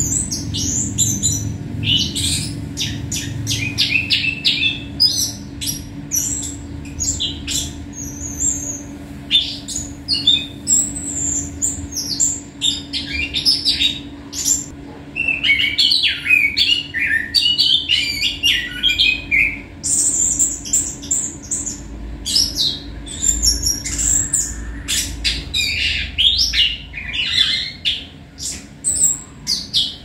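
Caged songbird singing almost without pause in fast, varied phrases of high chirps, whistles and trills, broken by short gaps: a bird in full song (gacor).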